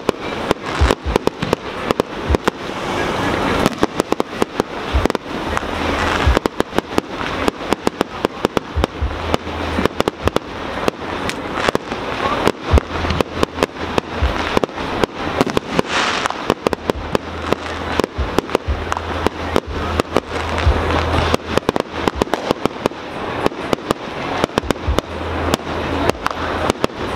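Aerial fireworks going off in a rapid, continuous string of bangs and crackling pops, several a second.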